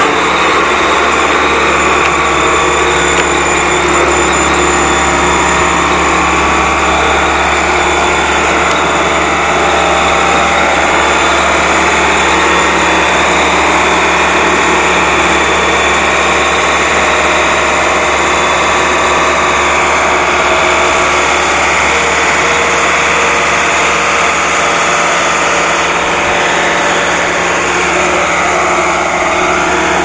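Case 1107 EX single-drum road roller's diesel engine running steadily under load as the compactor drives over loose soil, heard up close.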